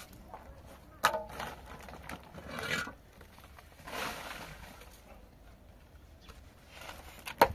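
Hollow concrete blocks being handled and set in mortar: a sharp knock about a second in and another near the end, with scraping and rubbing of block on block and mortar between.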